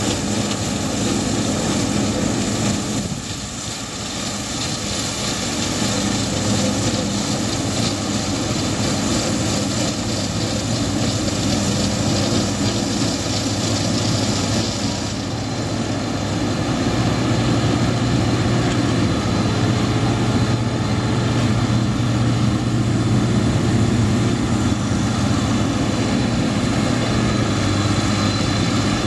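Yanmar YWH1400A combine baler running in the field as it cuts and bales feed rice: a steady diesel-engine and machinery drone with several steady tones, dipping briefly about three seconds in and growing a little louder with a stronger low hum in the second half.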